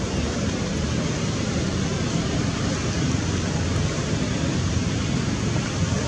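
Steady rumbling background noise, strongest low down with a fainter hiss above, with no distinct animal sound standing out.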